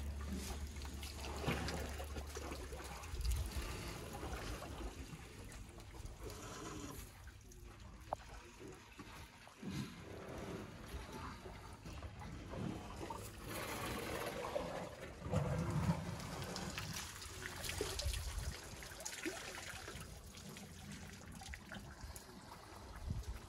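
Elephants drinking at a waterhole: water trickling and splashing from their trunks, with scattered knocks and rustles of the animals moving.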